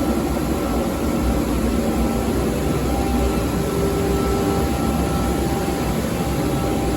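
UniteK Winner wide belt sander running: a steady, even machine noise with a few faint steady tones in it.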